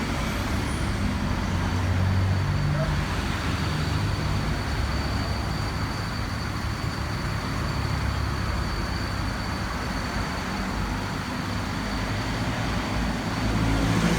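Motor vehicle engine running, its low hum shifting a little in pitch, over steady road or traffic noise, with a faint steady high-pitched whine throughout.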